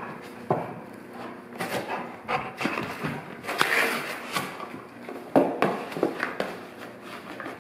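Golden retriever biting and tearing at a thin cardboard cereal box, making irregular rips, crunches and scuffs, with a longer ripping stretch a little past halfway and a few sharp tears near the end.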